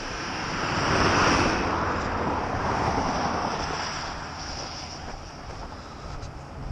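A truck passing on the road: tyre and engine noise swells to its loudest about a second in, then slowly fades.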